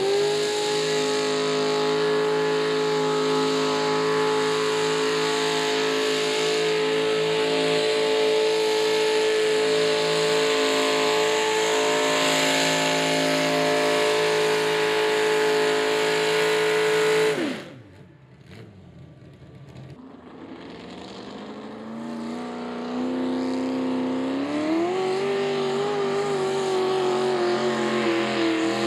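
Naturally aspirated mini rod pulling tractor's engine running at a high, steady wide-open-throttle rev as it drags the weight-transfer sled, then cutting off suddenly at the end of the pull. A couple of seconds later, another mini rod's engine revs up in steps and holds at high revs.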